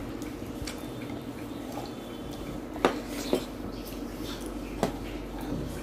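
Dishes clinking during a meal: a few light scattered clicks, with sharper clinks about three seconds in and again nearly five seconds in.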